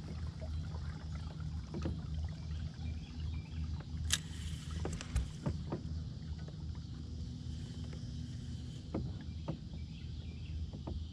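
Steady low hum from a fishing kayak's Newport Vessels electric motor running while the kayak moves, with scattered light clicks and knocks. The sharpest click comes about four seconds in.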